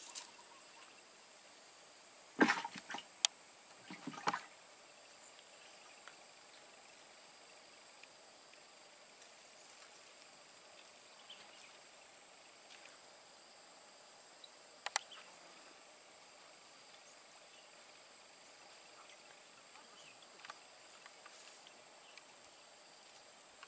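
Insects buzzing in one steady, unbroken high-pitched note. A few sharp clicks or knocks break in, clustered near the start and once about midway.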